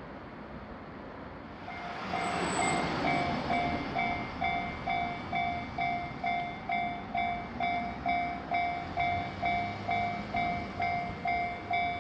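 Japanese railway level-crossing warning bell starting to ring about three seconds in. It gives a steady, repeating electronic clang a little over twice a second, the signal that a train is approaching. Just before it, a rush of noise swells up.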